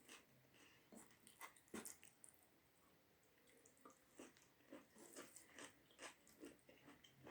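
Faint close-up chewing and mouth smacking of a person eating a mouthful of rice: short wet clicks, sparse at first, then several a second in the second half.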